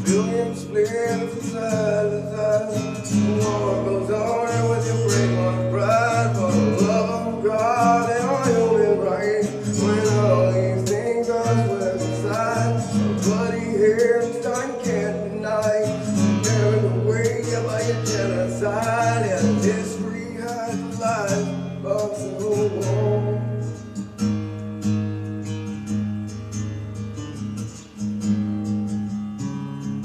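A man singing to his own strummed acoustic guitar, his voice going through a vocal effects pedal. The singing stops about 23 seconds in and the guitar carries on alone.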